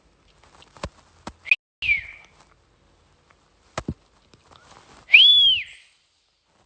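Whistling in short notes: a quick rising whistle, then a falling one, and about five seconds in a louder whistle that rises and falls back. A few sharp clicks fall between them.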